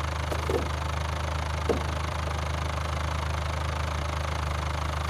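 Engine idling steadily with a low, even hum, with a few short faint blips about half a second and almost two seconds in.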